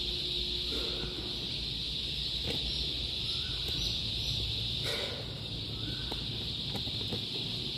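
A large flock of young chicks peeping all at once, their calls merging into a steady high-pitched chorus.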